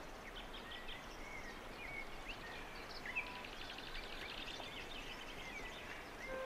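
Small birds chirping, many short notes scattered over a steady hiss of outdoor background noise. A steady pitched tone comes in just at the end.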